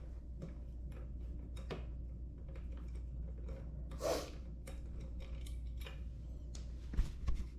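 Scattered light clicks and taps of metal parts and tools being handled while a wheel is taken off, with a few sharper knocks near the end, over a steady low hum.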